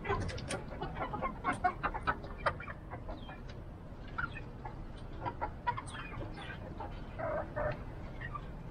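A small mixed flock of chickens clucking as they forage. The calls are short and scattered, busiest in the first few seconds, with another cluster near the end.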